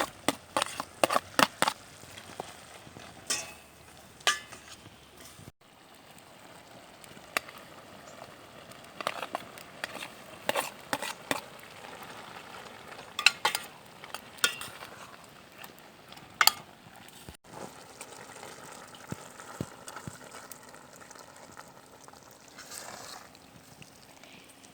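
Food sizzling in a pan while a utensil stirs it, scraping and clicking sharply against the pan, broken by two abrupt cuts.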